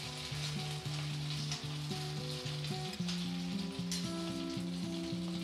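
A bread-and-potato tikki deep-frying in hot oil in a kadhai: a steady sizzle of bubbling oil. Soft background music with held notes runs underneath.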